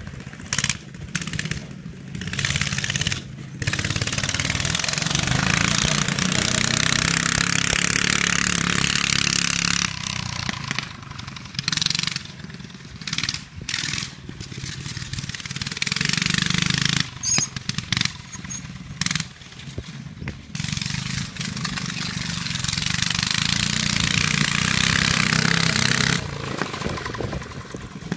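Murray 7 hp buggy's petrol engine running on an open pipe with the exhaust removed, revving up and down as the buggy is driven about, and growing louder in several long swells.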